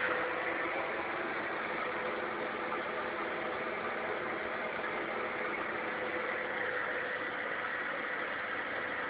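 Vacuum cleaner motor running steadily, a constant whirring noise with a steady hum through it.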